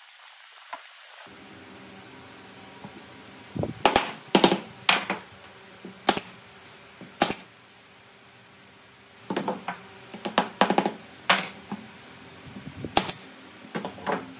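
Pneumatic nail gun firing nails into a wooden frame: a dozen or so sharp shots in irregular groups, some in quick succession, starting a few seconds in.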